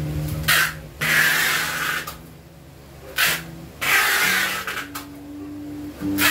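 Packing tape ripping off a handheld tape-gun dispenser and being pressed onto a cardboard box, in several rasping pulls a second or so long.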